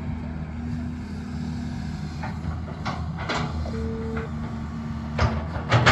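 Excavator's diesel engine running steadily with a faint steady whine, and sharp metallic clanks from about two seconds in that come thicker and louder near the end.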